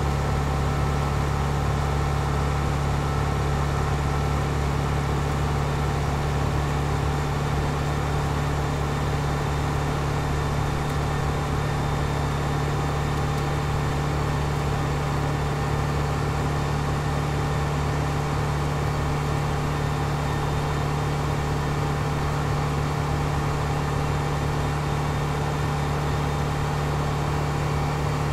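Mitsubishi Lancer Evolution engine idling, a steady low hum that holds one pitch with no revving.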